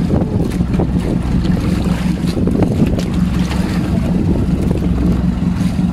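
Small outrigger fishing boat's engine running steadily with a constant low hum, with wind buffeting the microphone and water washing against the hull.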